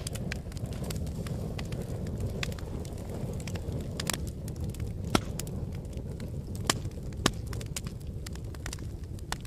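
Wood fire crackling: a steady low rumble of flames under sharp pops at irregular intervals, the loudest about halfway through and two more a couple of seconds later.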